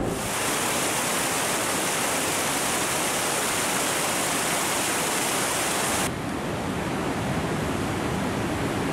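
Rushing water of a fast mountain stream, a steady hiss. About six seconds in it cuts abruptly to a slightly quieter, duller steady rush.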